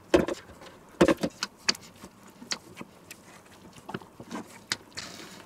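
Metal bowls and a spatula knocking and scraping: a couple of louder knocks from a stainless mixer bowl being emptied into a steel mixing bowl, then light scattered clicks as a spatula folds whipped cream into the bowl.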